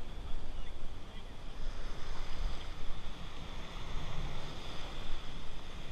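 Shallow Gulf surf washing and splashing close to the camera, with wind rumbling on the microphone.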